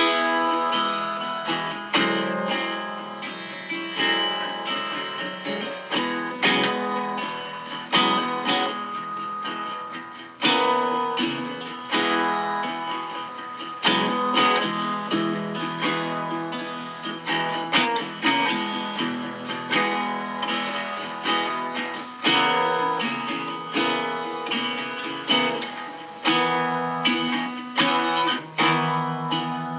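Improvised dobro (resonator guitar) playing alone: plucked notes and chords, each ringing out and fading before the next.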